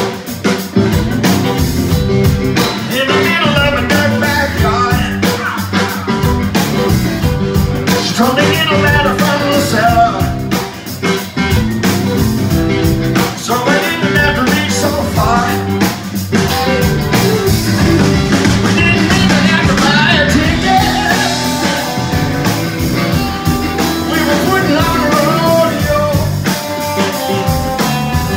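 Live rock band playing: electric guitars, electric bass and a drum kit, loud and dense throughout.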